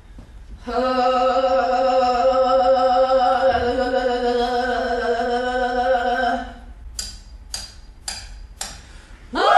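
A voice sings one long held note on a steady pitch, with a slight vibrato, for about six seconds. Four short hissing sounds follow. Near the end a voice swoops up into a loud, high, held wail.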